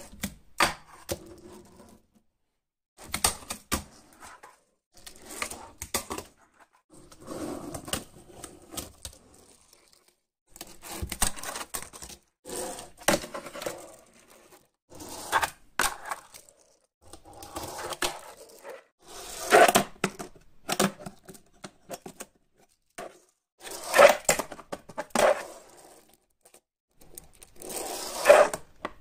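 Fingerboard ridden by hand on wooden and particle-board ramps and a table: runs of small wheels rolling, broken by sharp clicks of the board striking and landing. These come in bursts of a second or two with short pauses between.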